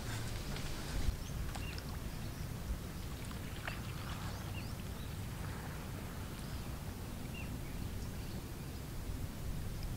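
Outdoor ambience: a steady low rumble with a few short high chirps from small birds, and a couple of faint knocks from the wooden boat as a person shifts in it.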